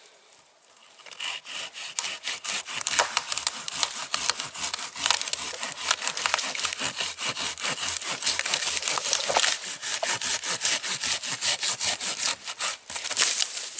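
Silky Gomboy 300 folding hand saw cutting through a birch trunk. After about a second it settles into quick, steady strokes of the teeth through the wood.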